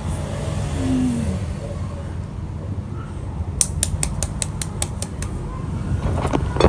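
A quick run of about ten sharp clicks, some six a second, over a steady low rumble.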